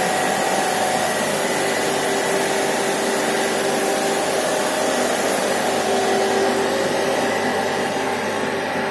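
Swimming pool circulation pumps running steadily: a loud, even machine whir with several steady hum tones over it.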